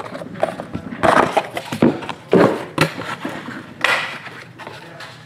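Hands lifting the contents out of a cardboard trading-card box and setting things down: a series of light knocks and crinkly rustles, several of them strung out unevenly, the loudest about a second and two and a half seconds in.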